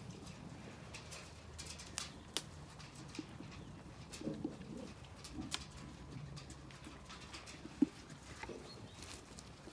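Sheep feeding at a metal trough: scattered knocks and clicks as muzzles and hooves strike the trough and the ground, the sharpest knock coming a little before the end.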